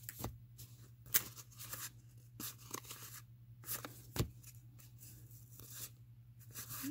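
1987 Fleer baseball cards being handled and slid past one another in the hands, with short scattered rustles and clicks over a faint steady hum.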